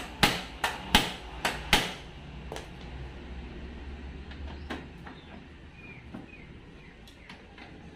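Metal hammer taps on a car door's U-shaped striker, knocking it inward so the door shuts tighter: five quick sharp strikes in the first two seconds, then only a few faint clicks.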